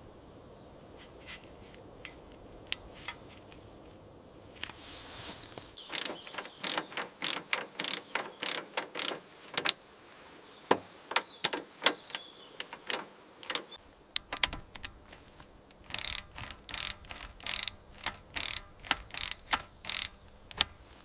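A run of sharp mechanical clicks that start a few seconds in and come at uneven spacing, quicker near the end.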